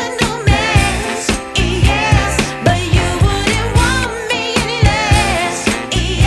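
Background music: a song with a vocal melody over a steady beat and bass.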